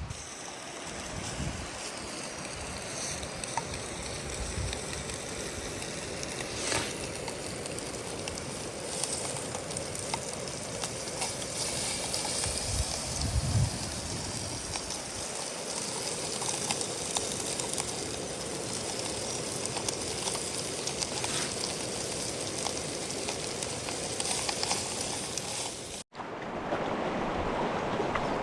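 Steady rushing of a mountain stream. It cuts out for an instant near the end and returns as a fuller, deeper rush.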